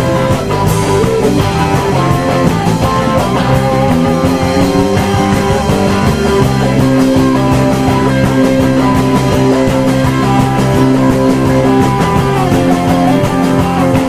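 Live rock band playing loudly: two electric guitars over an electric bass and a drum kit.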